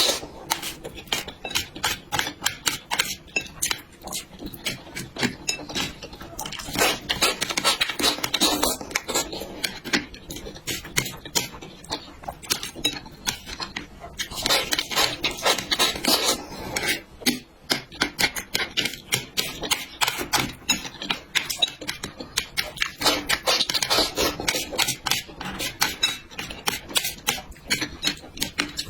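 Close-miked eating: chewing with many wet mouth clicks, louder in spells every several seconds.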